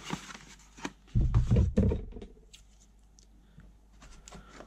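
A cardboard parcel being handled: a brief rustle, a loud low bump about a second in, then faint scratches and light clicks as the packaging is turned over and picked at.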